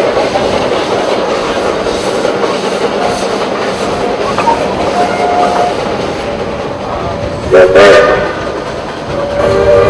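Steam whistle of a narrow-gauge Shay locomotive blowing a short, loud chord of several tones about three-quarters of the way through, then starting a longer blast near the end. Between the blasts the train rolls along with a steady rumble and clatter.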